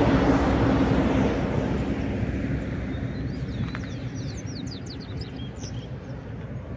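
Highway traffic: a vehicle goes by, and its engine and tyre noise fades away over the first few seconds. Then a bird gives a quick series of short chirps.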